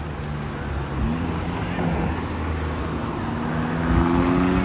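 City street traffic: a motor vehicle's engine hum rising slowly in pitch, getting louder and passing close about four seconds in, over a steady traffic background.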